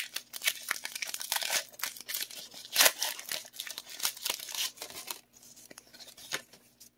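Foil Pokémon booster pack wrapper being torn open and crinkled by hand: a dense run of crackling rips that dies down about five seconds in.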